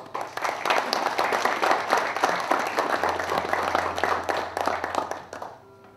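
A small audience applauding, many hands clapping at once, dying away near the end.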